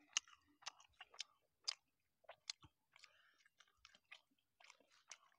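Faint, close-up chewing of a mouthful of som neua (fermented sour beef): irregular wet mouth clicks and lip smacks, several a second.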